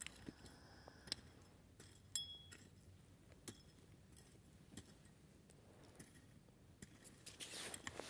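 Near silence: faint outdoor quiet broken by scattered small clicks and ticks, with a brief thin high tone about two seconds in and a soft scraping hiss rising near the end.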